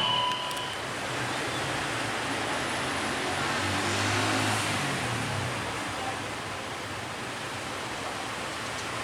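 A train horn cuts off just after the start, then a passing train gives a steady rushing noise of wheels on rails, with a low hum swelling and fading near the middle.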